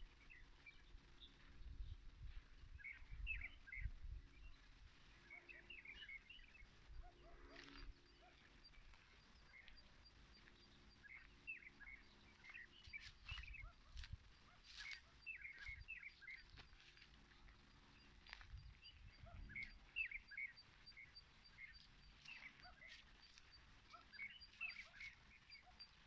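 A flock of small birds chirping and twittering in a grove, in short bursts of calls that recur throughout. A faint, evenly repeated high tick runs through the second half, and low rumbles come and go.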